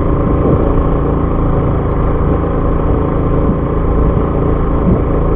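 Fishing boat's engine running steadily at low revs, an unchanging mechanical drone.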